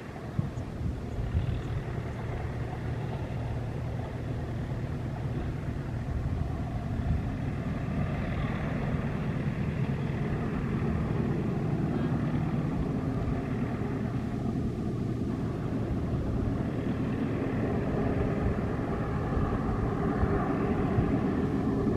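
WDG3A diesel locomotive hauling a passenger train at a distance: a steady engine drone over the rumble of the train, growing a little louder through the second half.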